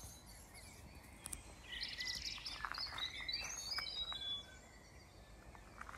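Small birds chirping, a run of short high calls from about two seconds in until past four seconds, over faint background noise.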